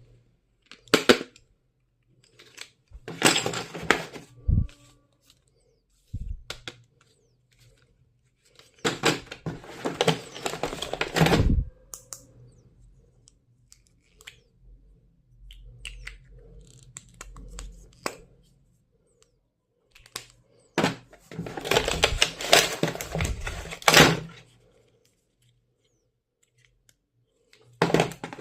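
Stationery packaging being handled and opened: several bursts of rustling and tearing a few seconds long, separated by quiet pauses, with a couple of soft knocks as items are set down.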